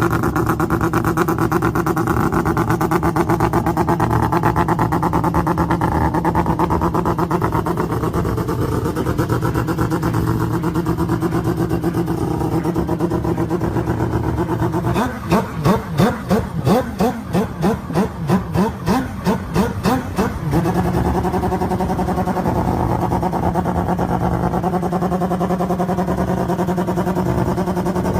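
Mazda RX-7 rotary engine idling steadily. About halfway through, the throttle is blipped rapidly, roughly twice a second, for about five seconds before it settles back to idle.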